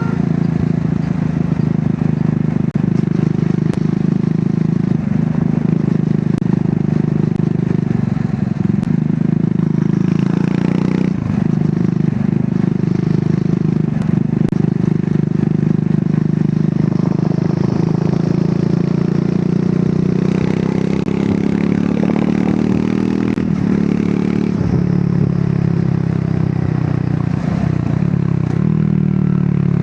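Triumph Scrambler 400 X's single-cylinder engine running under way on the stock exhaust, its note rising and falling a few times with the throttle.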